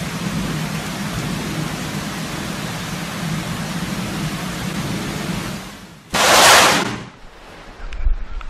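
Heavy rain pouring steadily with a low rumble of thunder, fading out about five and a half seconds in. Just after, a sudden, very loud burst of noise lasts about a second.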